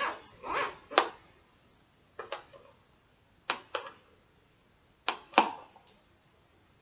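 Plastic wrapping on a cardboard jigsaw puzzle box being picked at and peeled off by hand: short bursts of crackling and crinkling with quiet gaps between them.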